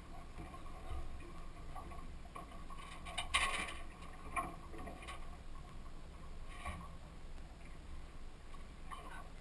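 Muffled steady low rumble of a boat at sea, with a few short knocks and clatters from gear being handled on deck, the loudest about three and a half seconds in.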